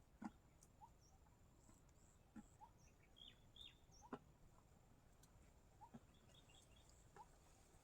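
Faint outdoor rural quiet with scattered short bird chirps, a steady faint high-pitched hum and a few soft sharp ticks.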